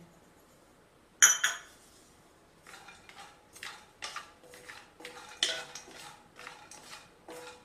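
One sharp metal clink about a second in, then a wooden spatula stirring cashew nuts in ghee in a non-stick kadai, scraping the pan in short strokes about two to three times a second.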